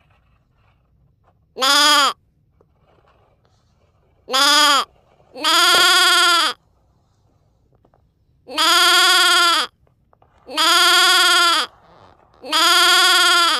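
Six bleats, a few seconds apart: two short ones, then longer drawn-out ones, each rising and then falling in pitch.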